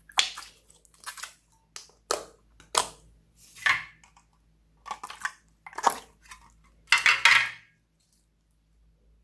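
Clear slime squeezed and kneaded by hand, making about a dozen short, irregular wet squelches that stop shortly before the end.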